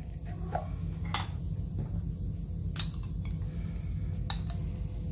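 Metal spoon clinking against a glass jar while scooping out minced garlic: a few sharp clinks, about a second and a half apart, over a steady low hum.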